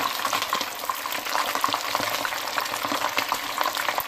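Whole tilapia deep-frying in hot oil in a pan: the oil sizzles steadily with a dense crackle of small pops.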